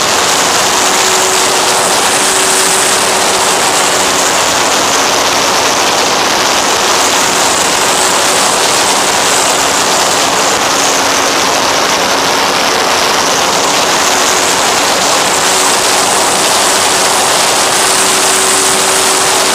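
Steady, loud rush of airflow on the FX-79 flying wing's onboard camera microphone, with a faint steady hum from its propeller motor that fades in and out.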